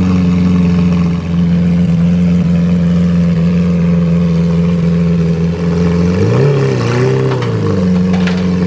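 Lamborghini Veneno's V12 engine idling steadily, then revving lightly twice about six seconds in before settling back to idle.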